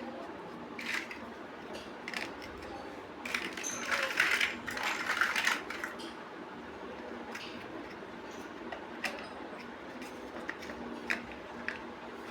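Small plastic building bricks clicking and rattling as they are handled and pressed together, with a busier stretch of rattling about three to six seconds in.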